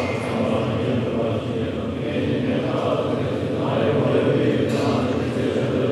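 Tibetan Buddhist monks chanting together in a low, continuous drone, with a short sharp sound near the end.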